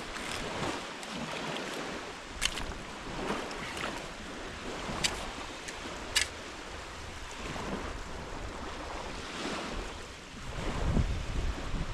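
Small waves washing on a sandy Lake Superior beach, with wind on the microphone. A few short sharp clicks come through the wash, and a stronger gust of wind buffets the microphone near the end.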